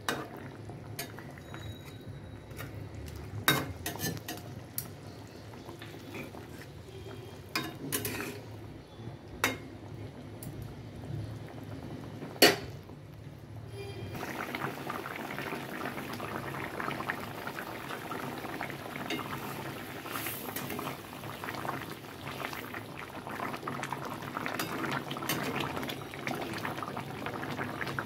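Metal spatula stirring fish curry in a metal karai, with a few sharp clinks against the pan. About halfway through, the thick curry gravy bubbles and sputters steadily at the boil.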